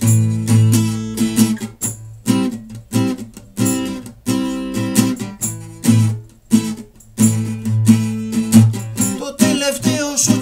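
Acoustic guitar strummed in a steady rhythm, each stroke followed by the chord ringing: an instrumental stretch between sung lines.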